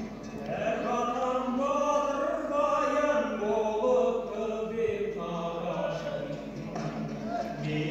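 Singing over music, the voice holding long drawn-out notes.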